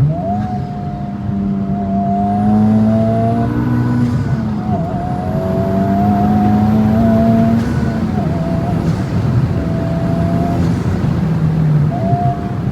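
Tuned Honda Civic Type R FL5's turbocharged 2.0-litre four-cylinder under acceleration, its note climbing and breaking at gear changes about every four seconds. A faint high turbo whistle rises with it and cuts off at each shift.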